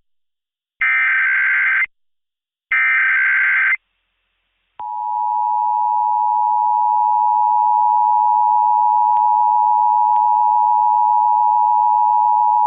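Emergency Alert System test broadcast over radio: the last two of the SAME digital header bursts, each about a second long, then after a short gap the steady two-tone EAS attention signal starts about five seconds in and holds.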